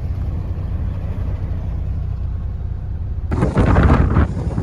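A truck's diesel engine running with a steady low rumble; about three seconds in it cuts abruptly to loud, uneven wind gusts buffeting the microphone.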